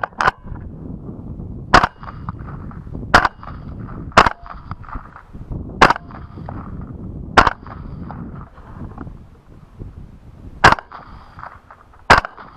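Suppressed LWRCI Razorback II rifle firing 6.8 mm rounds at running hogs: a string of about nine sharp shots one to three seconds apart, the first two in quick succession.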